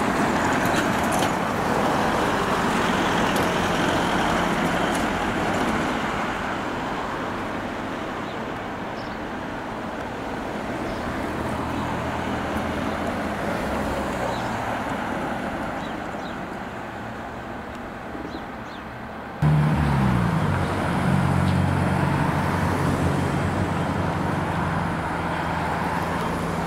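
Road traffic going by: a steady wash of passing-car noise, loudest in the first few seconds and then easing off. After an abrupt cut, a steady low hum with a few held tones takes over, like an engine running at idle.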